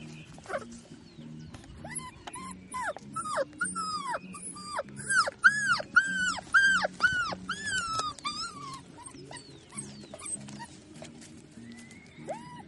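Puppy yelping over and over: a quick run of short, high, arching yelps, about two to three a second, that grows louder toward the middle and tails off, with one more yelp near the end. Background music plays underneath.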